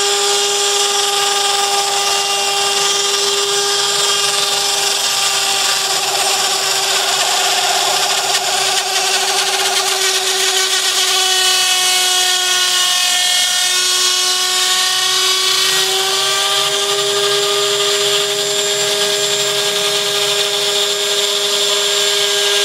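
Spindle motor of a Prusa i3-based DIY CNC machine running at high speed with a steady whine. Its pitch sags briefly a little past the middle and then comes back up.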